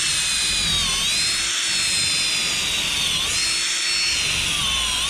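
Cordless drill with a 1/4-inch bit boring a pilot hole through asphalt shingles into the stud beneath, running steadily. Its high whine sags in pitch and recovers about three times as the bit loads up in the wood.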